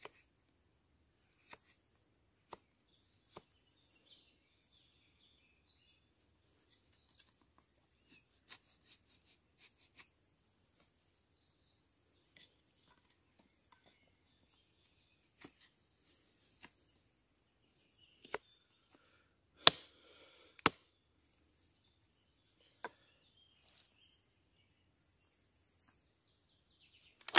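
Scattered sharp clicks and knocks, with two loud sharp knocks about a second apart near the twenty-second mark, while small birds chirp faintly.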